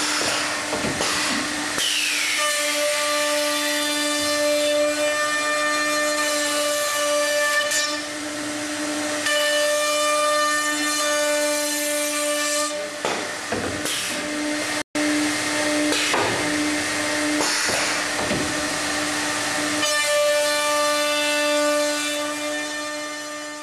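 High-speed router motors of a CNC stair router running at speed with a steady whine, their dovetail bits routing housings in wooden stair stringers. The cutting noise rises and falls as the bits move through the wood, and the sound cuts out for an instant about fifteen seconds in.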